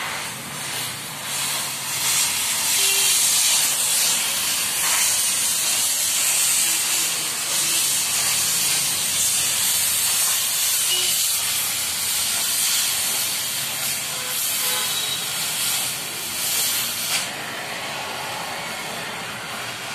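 Oxy-fuel gas cutting torch hissing as it cuts through a steel plate. The hiss turns louder about a second and a half in and drops back to a softer hiss about three seconds before the end.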